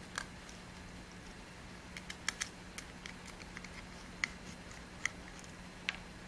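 Faint, scattered small clicks of a precision Phillips screwdriver and tiny screws as the screws of a DJI Mavic Pro gimbal's anti-drop hook are backed out of its plastic housing, over a steady low hum.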